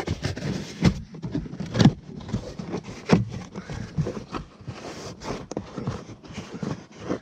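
Foam trim cover under a car's glove box being worked loose and pulled out from beneath the dash: irregular scraping and rustling with scattered plastic clicks and knocks.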